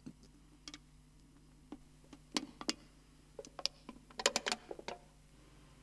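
Scattered sharp clicks and taps, a few at first and then quick clusters through the middle, over a faint steady low hum.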